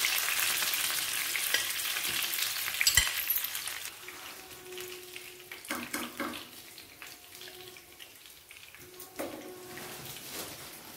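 Marinated fish pieces shallow-frying in oil in a pan, sizzling loudly while a spatula turns them, with a single knock about three seconds in. After about four seconds the sizzle dies down to a faint crackle, the burner having been switched off once the fish is cooked.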